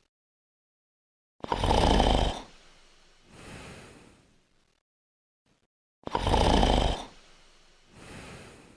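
Snoring: twice, a loud snore on the in-breath is followed by a softer breath out, with complete silence between the cycles.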